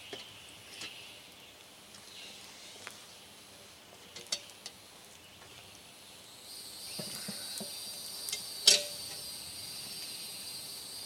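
A cast-iron Dutch oven being lifted by its wire bail and moved, with light metal clicks and knocks and one sharp clank about two-thirds through as it is set down. Insects start a steady high trill about six seconds in.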